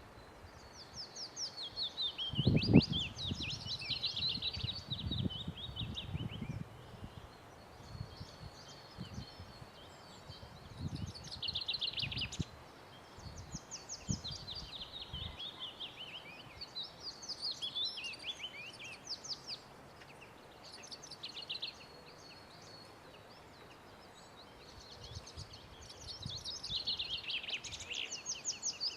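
Wild songbirds singing in spring: short phrases of rapid trills repeated every few seconds, with a pause of a few seconds between them. Low rumbling comes and goes through about the first half, loudest a few seconds in.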